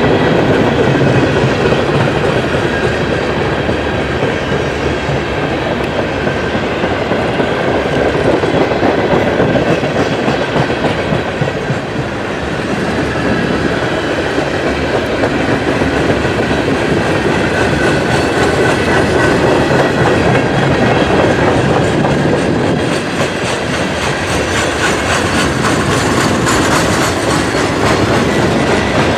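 Norfolk Southern manifest freight cars, covered hoppers and autoracks, rolling past close by: a steady rumble with the clatter of steel wheels over the rail joints.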